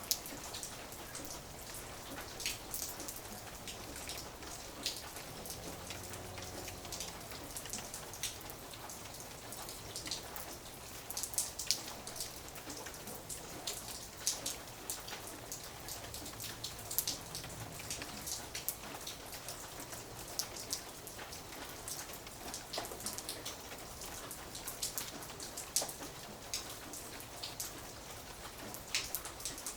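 Light rain falling: a steady hiss with many separate drops ticking sharply and irregularly throughout.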